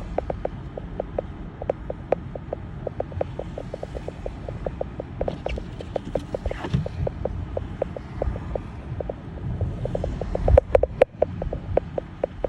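A car driving through a snowstorm: steady low road rumble with a quick run of light ticks, about four or five a second, louder for a moment near the end.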